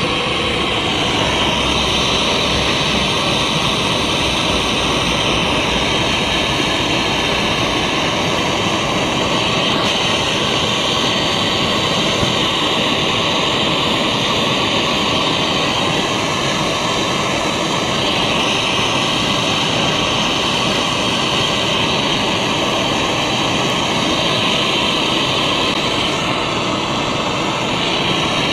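Gas torch flame burning with a steady hiss while heating a copper pipe joint for soldering.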